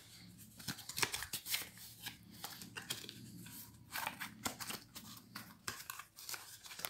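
Cardboard product box and its sleeve being handled: irregular dry scrapes, rustles and small knocks of card sliding and tapping against card.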